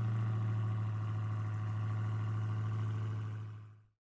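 Car engine idling steadily with an even low hum, fading out near the end.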